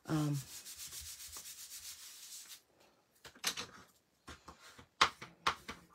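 Bone folder rubbed along the fold of a white cardstock card to crease it: a quick run of rubbing strokes for about two and a half seconds, then a few separate strokes later on.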